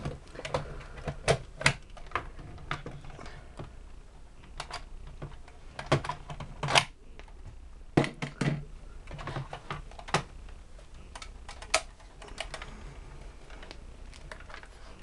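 Irregular clicks and knocks of a Polaroid 195 folding pack-film camera being handled and opened out: its latches and metal parts clicking, and a few duller knocks as the camera is set on and moved about a wooden desk.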